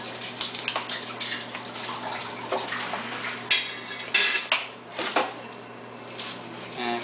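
Chef's knife cutting and chopping through a raw chicken's backbone on a wooden cutting board: crunching of bone with a few sharp knocks of the blade against the board, the strongest about halfway through.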